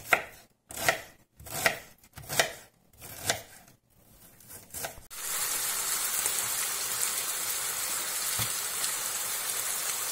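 A knife chopping onion on a plastic cutting board, one knock about every three-quarters of a second. About five seconds in, this gives way to a steady sizzle of oyster mushrooms frying in a pan.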